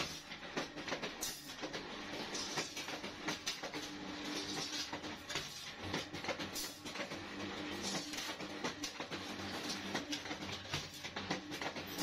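Steel wire stirrup bending machine running, with a steady motor hum under continual irregular clicking and clanking of steel wire being fed and bent.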